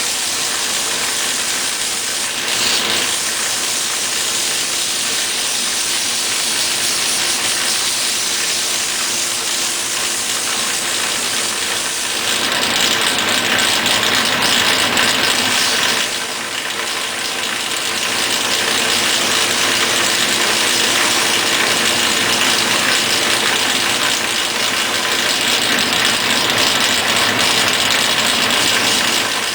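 Sandpaper rubbing over a wood baseball bat: a steady, rasping hiss over a steady machine hum. The hiss grows louder about twelve seconds in, drops briefly around sixteen seconds, then picks up again.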